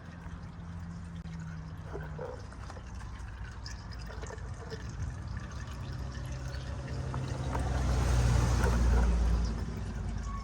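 Engine oil from a rebuilt Cummins ISX draining out of the oil pan into a drain pan, a steady pouring trickle. Under it runs a low hum that swells louder for a couple of seconds near the end.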